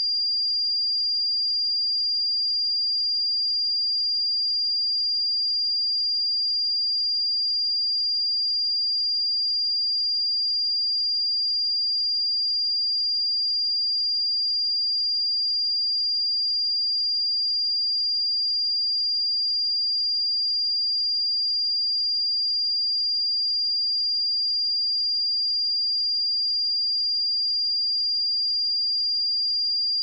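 A pure 4794 Hz sine-wave test tone, one steady high-pitched beep held at a constant level.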